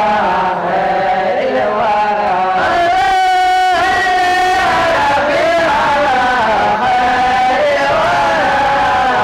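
Group of male voices chanting an Islamic devotional Mawlid hymn in praise of the Prophet, the melody carried through a microphone, with one long held note about three seconds in.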